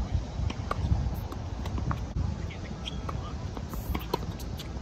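Tennis rally: rackets strike the ball in several sharp pops, a second or so apart, over a steady low rumble.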